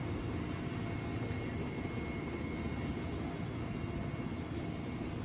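Steady helicopter engine and rotor noise during an airlift evacuation.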